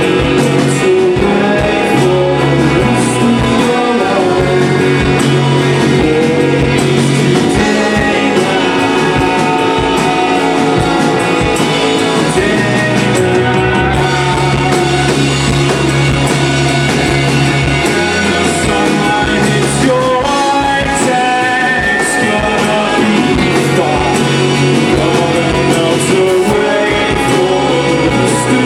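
A live rock band playing a song, with guitar and a singing voice, steady and loud throughout.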